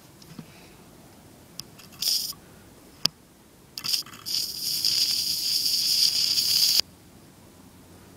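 DC arc from two 80 W solar panels in series (about 40 V at 5 A) struck against steel in an attempt to weld. It gives a few short crackling sputters and a sharp click, then a steady hissing arc for about two and a half seconds that cuts off suddenly.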